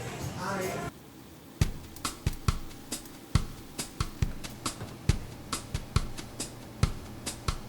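Background music cuts off about a second in, and a sparse drum beat of kick and hi-hat-like hits starts about a second and a half in.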